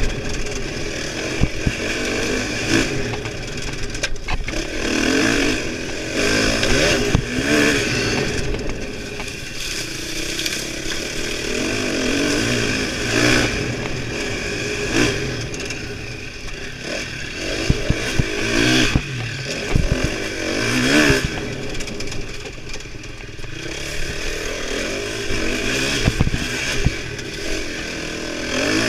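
KTM dirt bike engine revving up and down over and over as it is ridden hard along a twisting trail, with scattered knocks and rattles from the bike over rough ground.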